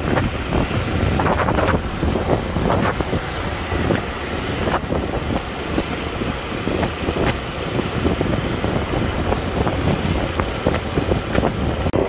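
Wind rushing and buffeting over the microphone on a moving motorbike, with the bike running underneath.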